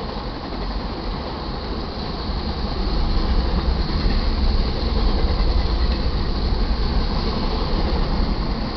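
Enclosed autorack cars of a freight auto carrier train rolling past, with a steady rumble and rattle of steel wheels on the rails that grows louder about three seconds in.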